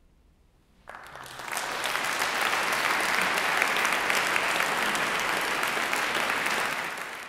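Audience applauding, starting suddenly about a second in after a short silence, then steady, and fading near the end.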